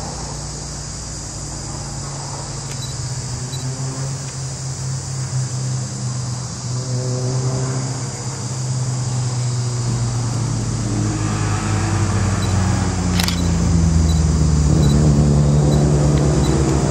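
Circuit race car engines, growing steadily louder as a pack of cars approaches through a corner. There is one short sharp click about two-thirds of the way through.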